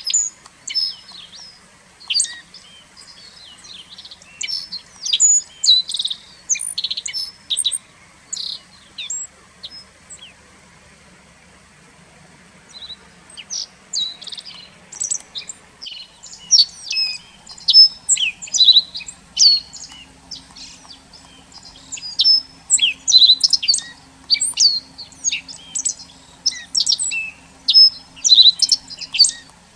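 Many small songbirds calling in short, high chirps, thick and overlapping, thinning out for several seconds in the middle before picking up again.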